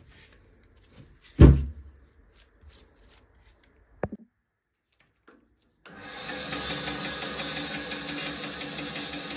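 A wooden log handled on a rubber mat, with light knocks and one heavy thump about a second and a half in. About six seconds in, a bandsaw comes in, running steadily.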